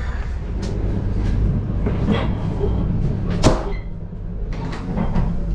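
Steady low rumble of a loco-hauled intercity passenger coach running, heard from inside the carriage, with a sharp door-latch click about three and a half seconds in as a toilet door's lever handle is worked.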